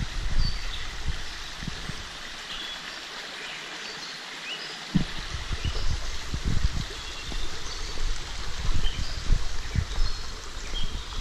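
Shallow rocky woodland creek flowing and trickling, with short high bird chirps now and then and irregular low thumps.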